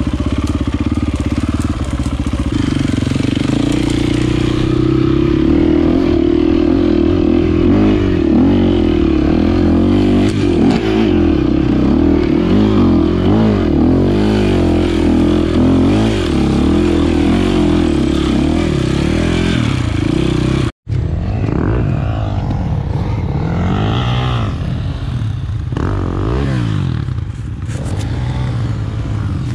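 Enduro motorcycle engine running under constantly changing throttle, its pitch rising and falling as it is ridden off-road. The sound cuts out for an instant about two-thirds of the way through.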